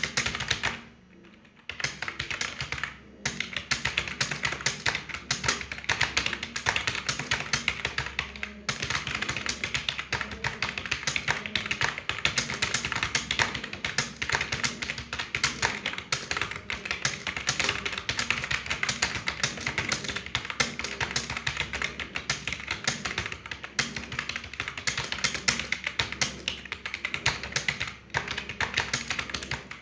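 Fast, continuous typing on a computer keyboard, with rapid, dense key clicks. The typing stops briefly about a second in and again for a moment a few more times.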